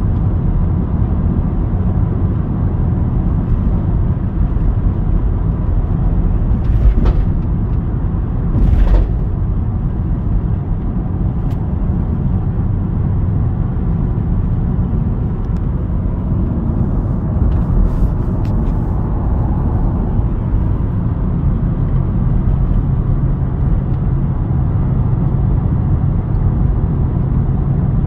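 Audi 3.0 TDI V6 diesel wagon heard from inside the cabin, pulling steadily uphill under load while towing a heavy trailer: a steady low engine drone mixed with tyre and road rumble. A couple of brief knocks come about a quarter of the way in.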